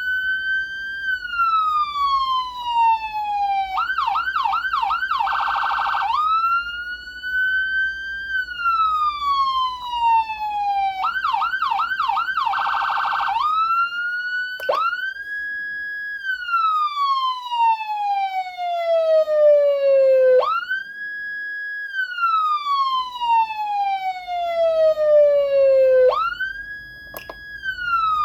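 Whelen Cencom Sapphire electronic siren amplifier sounding programmed siren tones. First comes a wail that falls slowly and twice breaks into a short burst of rapid yelps and a fast warble. About fourteen seconds in it changes to a different wail that climbs sharply, holds briefly and falls slowly, repeating about every six seconds.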